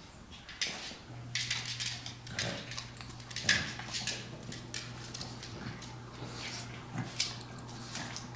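A pug and a Chihuahua play-wrestling: irregular breathy dog noises and scuffling, with two sharper bursts near the middle and near the end.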